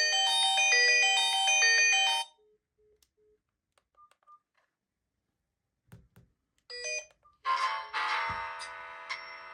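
Smartphone incoming-call ringtone playing a melody of short pitched notes, which cuts off suddenly about two seconds in. A few faint short beeps and a click follow, then another phone's ringtone starts about three-quarters of the way through.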